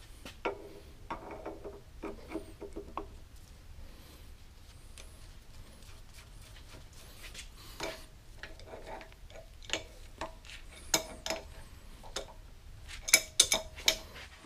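Sharp metal clinks and taps in clusters, some ringing briefly, as the steel crank handle and its retaining nut are fitted onto the saddle feed screw of a Bridgeport knee mill. The loudest clicks come near the end.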